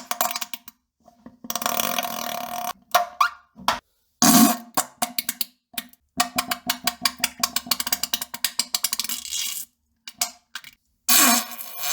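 A series of fart sounds: several short blasts with gaps between them, and a long sputtering one of rapid pulses in the middle.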